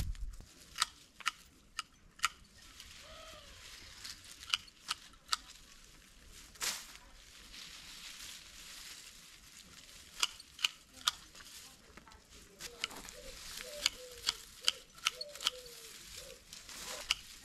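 Hand work among dry garden plants: irregular sharp clicks and snaps, about one a second, with faint rustling of dry stems. No powered tool is running.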